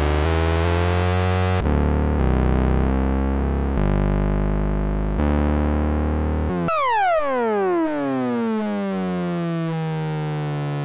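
Mutuca FM analog synthesizer playing a line of held low notes, changing pitch every second or so. About two-thirds through, a new sound sweeps steeply down in pitch and settles into a steady held tone.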